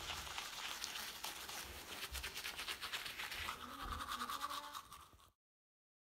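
Manual toothbrush scrubbing teeth with quick, rhythmic back-and-forth strokes, cutting off abruptly near the end.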